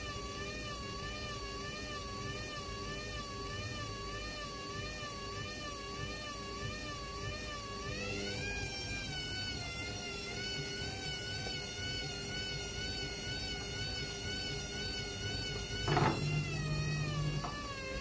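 Hoover front-loading washing machine's motor turning a drum loaded with a wet carpet. Its whine wavers up and down in pitch in a steady rhythm and steps up to a higher pitch about halfway through as the drum speeds up. Near the end there is a sudden loud bump, followed by a short low hum.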